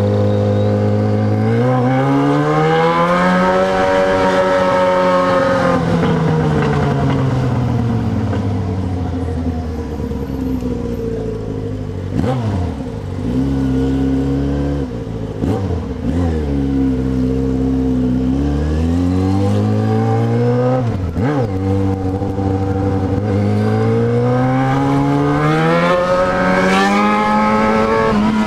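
Yamaha XJ6 inline-four motorcycle engine under way, its pitch rising and falling with the throttle. Several brief sharp dips in pitch come in the middle before it climbs again near the end.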